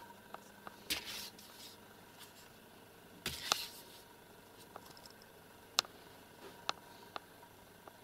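Quiet handling noise: scattered sharp clicks and two brief rustles, about a second in and again about three and a half seconds in, over a faint steady hum.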